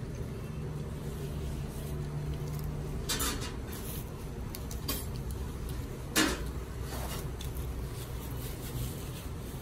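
Restaurant dining-room ambience: a steady low hum with a few scattered clinks of dishes and cutlery. The sharpest clink comes about six seconds in.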